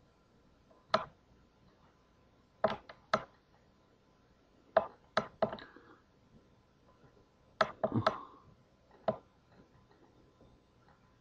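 About a dozen sharp clicks and taps in irregular clusters, the sound of computer use at a desk, heard in a small room.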